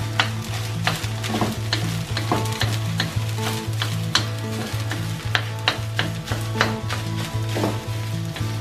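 Rice stir-frying in a hot cast iron pan: a steady sizzle, with the spatula scraping and knocking against the pan about two or three times a second.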